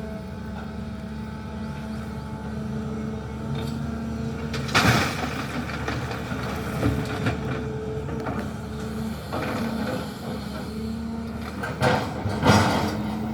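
SANY excavator's diesel engine running steadily under load, with a few short, loud, noisy bursts: one about five seconds in and two near the end.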